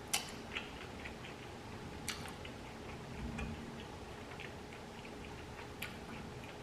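Close-miked chewing of burger and fries, with sharp wet mouth clicks and smacks: three louder ones among many faint ticks.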